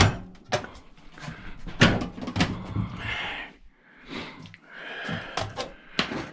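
Knocks, clicks and clatter of a microwave's sheet-metal casing and parts being handled during a teardown, with a short scrape about three seconds in.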